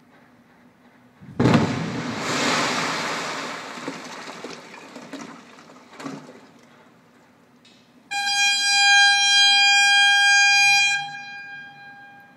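Rock blast in a construction pit: a sudden heavy bang about a second and a half in that dies away over a few seconds, with a smaller thump around six seconds in. Then a signal horn sounds one steady tone for about three seconds.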